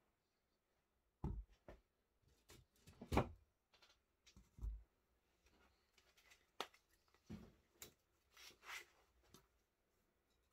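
Fixed-blade knives being handled and laid down on a mat: several quiet, irregularly spaced knocks and thumps with soft handling rustle between them.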